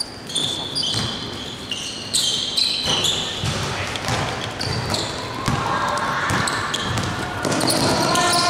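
Basketball game sounds: sneakers squeaking on the court floor again and again as players run and cut, with the ball bouncing as it is dribbled.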